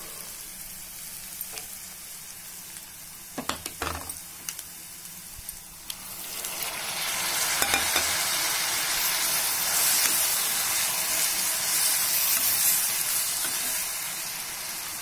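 Chopped onions frying in oil in a steel kadai, sizzling softly, with a few knocks about three and a half seconds in. About six seconds in the sizzle turns much louder and stays loud as chopped tomatoes go into the hot oil and are stirred with a spoon.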